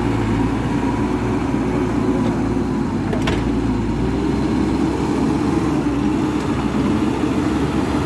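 Hidromek 102B backhoe loader's diesel engine running steadily at high revs under load as the front bucket is pushed into a pile of soil, with a single sharp clank about three seconds in.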